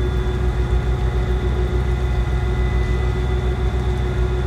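A boat's engine running steadily, heard on board: a constant low drone with a steady hum above it.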